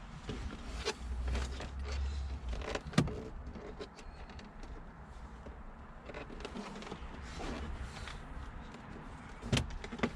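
Handling of car dashboard wiring and plastic trim: scattered clicks, rustles and knocks, with a sharp knock about three seconds in and another near the end.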